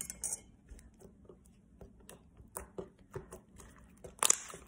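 Sticky pink slime being pressed and kneaded by hand, giving off irregular small clicks and squelches, with one louder pop about four seconds in.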